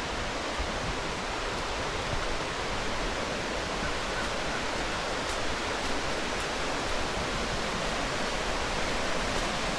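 Rushing water of a mountain stream and falls, a steady even hiss.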